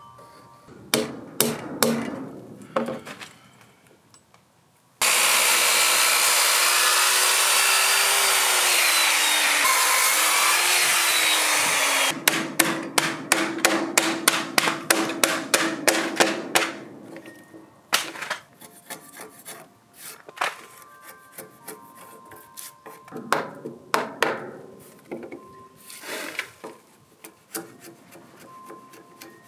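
Timber-frame joinery on an oak beam: a power saw runs and cuts steadily for about seven seconds and stops abruptly, then a claw hammer knocks out the waste between the saw kerfs in a fast run of blows. Lighter chisel taps and knocks follow.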